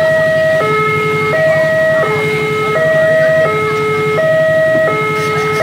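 Railway level-crossing warning alarm sounding, signalling that a train is approaching and the barriers are down: an electronic two-tone signal switching between a lower and a higher tone about every 0.7 seconds. A low engine drone runs underneath.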